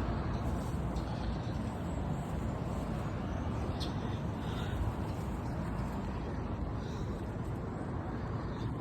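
Steady low rumble of outdoor background noise, with a faint click about four seconds in.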